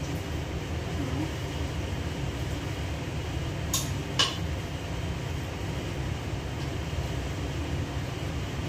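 Steady low hum of a kitchen range-hood fan, with two sharp clinks of a utensil against a pot about four seconds in.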